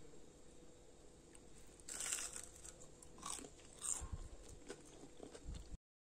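Faint crunching bites into a crispy sesame-coated potato stick, followed by chewing: a few crisp crunches about two, three and four seconds in, before the sound cuts off suddenly near the end.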